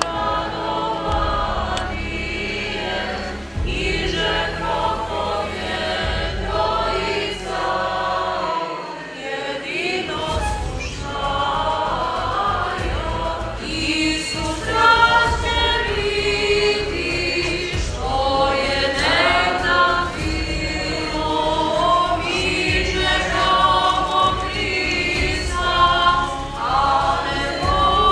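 A choir of several voices singing an Orthodox church chant together, in held, slowly moving phrases.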